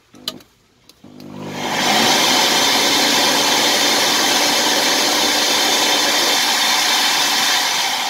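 Zelmer 919.0 washing vacuum cleaner switched on with a click, its motor spinning up over about a second and then running loud and steady. Just before the end it starts to wind down as it cuts out: the contact group in its power button is worn.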